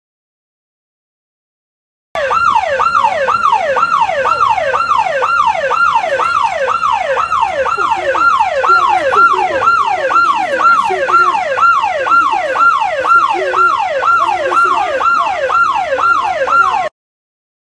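Electronic siren in a fast yelp, its pitch sweeping up and down about twice a second. It starts about two seconds in and cuts off abruptly near the end.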